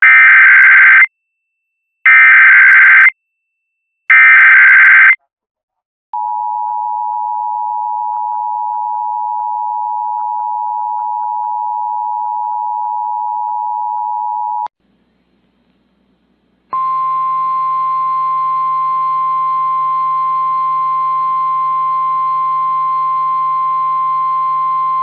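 Emergency Alert System tones for a tornado warning. The three one-second bursts of the SAME digital header come first. Then the two-tone EAS attention signal is held steady for about eight seconds, and after a click and a brief gap comes a single steady tone near 1 kHz, the NOAA Weather Radio warning alarm, lasting about nine seconds.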